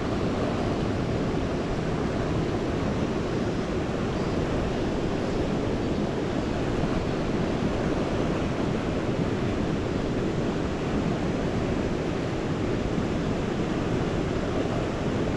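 Steady rush of the Yoshino River's main-stream current flowing past, an even noise at a constant level.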